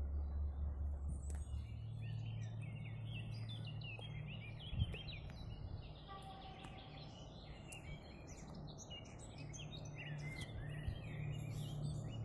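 Many small birds chirping and singing in overlapping calls over the low, steady hum of a distant diesel railcar, which grows slightly louder near the end. A single brief knock about five seconds in.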